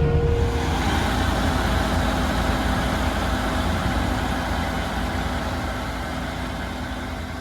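Large diesel farm harvest machinery running steadily, its engine hum slowly fading.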